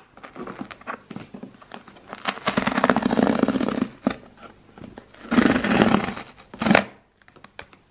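Cardboard tear strip being ripped open along the side of a Glossybox subscription box. After a few light handling rustles come three rips: a long one of about two seconds, a shorter one of about a second, and a brief last one near the end.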